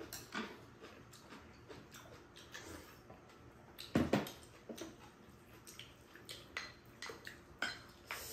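Tableware sounds during a meal: spoons clicking and scraping against a stainless steel mixing bowl and small ceramic bowls in scattered short knocks, with a louder clatter about four seconds in.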